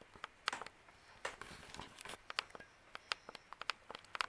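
Scattered sharp clicks and crackles at irregular intervals over a quiet background, with a faint brief high tone about three seconds in.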